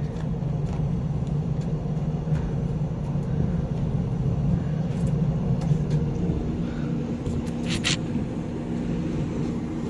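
Steady low rumble and hum of a ship's machinery, heard on the open deck of a ship at anchor. A short hiss cuts in once, near the end.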